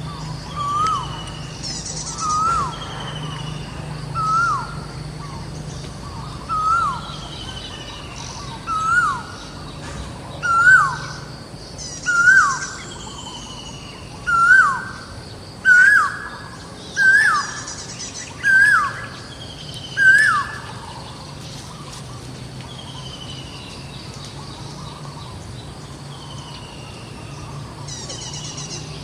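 A bird calls a short note about a dozen times, one every one to two seconds; the calls grow louder and stop about twenty seconds in. Other birds chirp faintly over a steady low hum.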